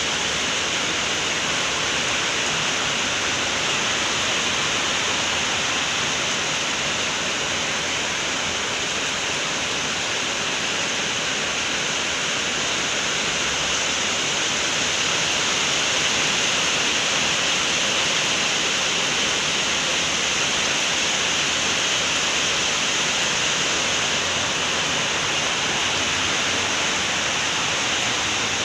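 Steady rain falling, an even continuous hiss with no breaks.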